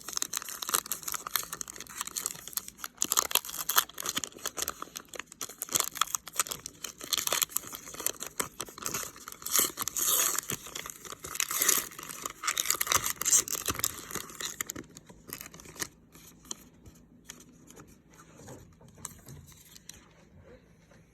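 Baseball card pack wrapper being torn open and crinkled for about fifteen seconds, then quieter rustling and small clicks as the cards are handled.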